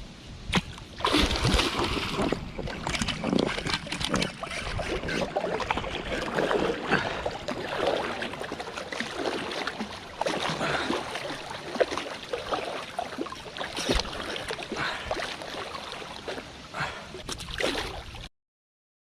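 Irregular water splashing with many sharp slaps and splatters, cutting off abruptly near the end.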